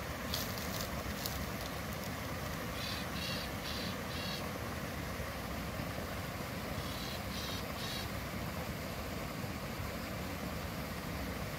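Steady outdoor background noise with two runs of short high chirps: four about three seconds in and three about seven seconds in, and a few sharp clicks near the start.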